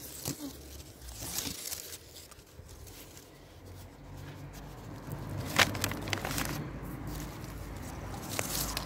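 Rustling of apple-tree leaves and twigs and the handling of apples as they are picked by hand, with scattered sharp clicks and snaps, the loudest a little past halfway.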